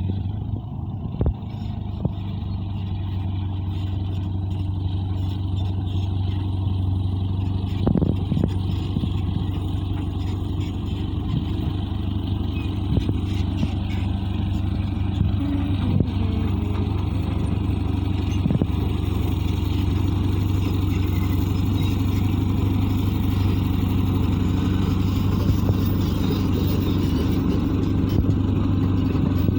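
Caterpillar D8 bulldozer's diesel engine running steadily under load, with a few sharp knocks.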